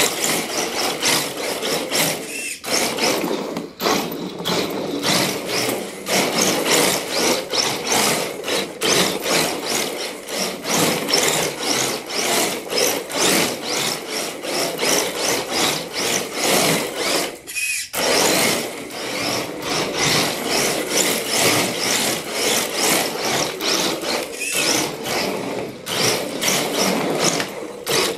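A small RC drift car's electric motor and gear drivetrain whirring, surging and easing with the throttle, with its tyres sliding and scrubbing on a hardwood floor. The throttle briefly lets off a couple of times.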